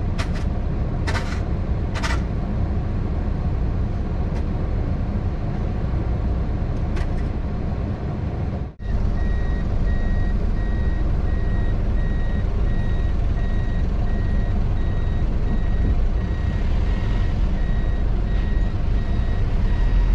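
A vehicle's engine runs with a steady low rumble. After a brief break about nine seconds in, a steady run of short, high reversing beeps sounds over the engine, a sign that a vehicle is backing up.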